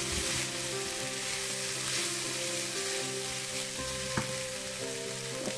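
Fried rice with prawns, egg and vegetables sizzling in a stainless steel frying pan over high heat while a spatula stirs and turns it, with one sharp click about four seconds in.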